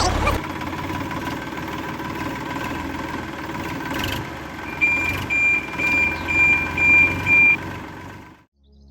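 Battery-powered toy construction vehicle's sound chip playing a running-engine effect, joined in the middle by six short reversing beeps about half a second apart; the sound cuts off sharply near the end.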